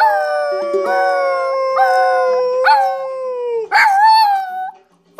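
Shiba Inu howling: one long drawn-out howl that breaks off about three and a half seconds in, then a shorter howl that rises and falls. Plucked ukulele notes sound underneath.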